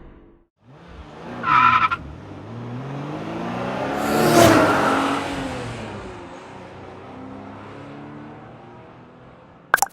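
A car going by: a brief tyre squeal, then an engine sound that swells to a peak about four seconds in, its pitch gliding, and slowly fades away. A sharp click comes near the end.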